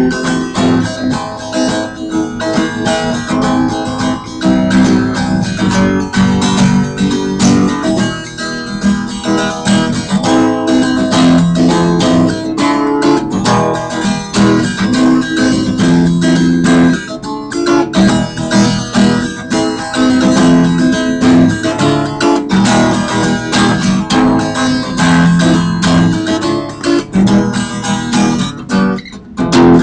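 Guitar music, plucked and strummed, playing continuously with a quick run of notes and regular chord changes.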